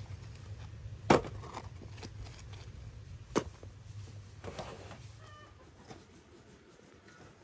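A domestic hen clucking a few times: short, sharp clucks about a second in and again past three seconds, then softer ones, over a faint low steady hum.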